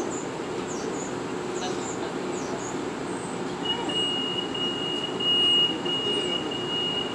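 Metro-North M8 electric railcar heard from inside: a steady rumble as the train draws to a stop at a platform. About halfway through, a steady high-pitched tone starts and holds.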